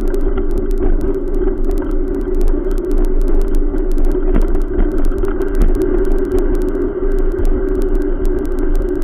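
Steady rolling rumble and rattle of a bicycle riding along a concrete sidewalk, with wind on the microphone and many small clicks throughout.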